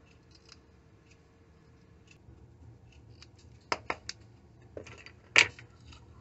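Small red-handled scissors snipping: three quick snips a little under four seconds in, then a couple of lighter clicks and one louder sharp click about five and a half seconds in.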